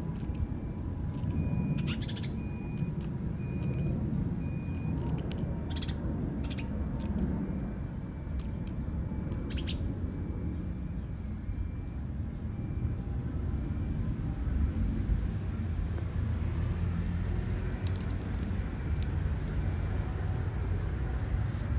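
Steady low rumble of open-air ambience on an elevated subway platform, with scattered sharp clicks and crackles. A faint high chirp repeats about once a second through most of it, dying away near the end.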